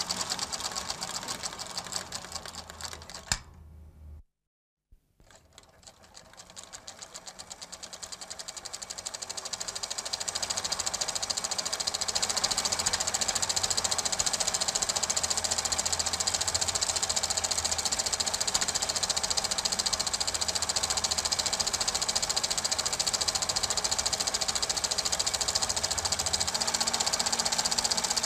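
Super 8 film projector running with a fast, even mechanical clatter. It fades and cuts out briefly about four seconds in, then starts again and builds back up to a steady clatter over several seconds.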